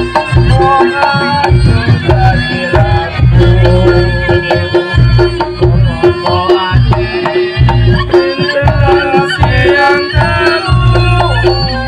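Reog Ponorogo ensemble music: drumming with a wavering high melody over a steady held tone.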